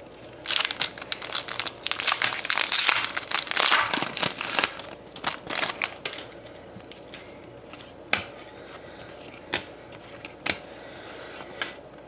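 Trading card pack wrapper being torn open and crinkled, a dense crackling rustle for the first few seconds, then only scattered light clicks as the cards are handled.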